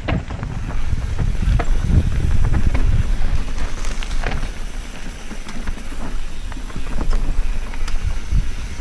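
Wind buffeting the microphone of a mountain bike descending a rough dirt trail, with scattered clicks and rattles from the bike as its tyres go over roots and stones.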